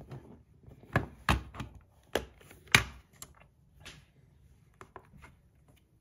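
Sharp plastic clicks and knocks as a pocket digital scale is handled, set down and its hinged lid opened on a cork mat: four strong knocks in the first three seconds, the last the loudest, then a few lighter taps.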